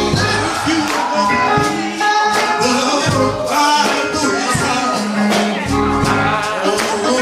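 Live gospel music: singing over a band with steady percussion and tambourine.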